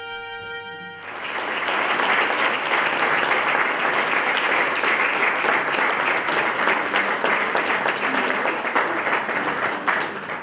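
A violin holds a final bowed note, which ends about a second in; then an audience breaks into steady applause that lasts to the end.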